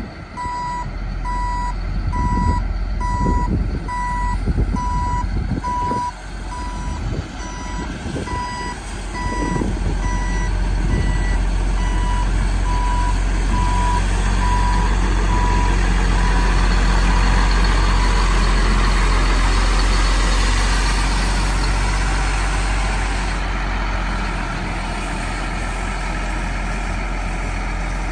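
Backup alarm on a 2007 Freightliner M2 Elgin Broom Bear sweeper truck giving repeating beeps over the running diesel engine. The beeps fade out about halfway through, while a rushing noise from the sweeper's brooms working the gravel builds up and peaks past halfway.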